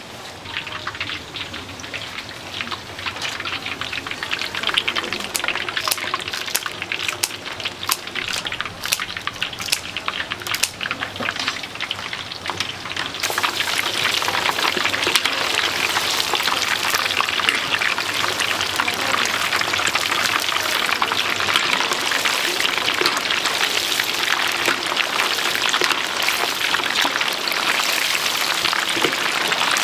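Chicken deep-frying in a vat of hot oil: a dense crackling sizzle with sharp pops in the first half, growing louder about halfway through.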